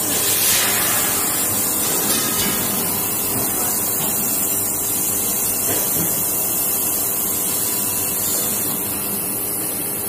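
Steady hiss of gas flowing from the nozzle of an automated fiber laser welding head as it welds a steel pipe joint.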